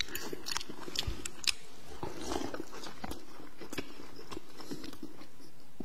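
Eating at a table: a few light clicks of a ceramic bowl and spoon in the first second and a half, then quiet chewing.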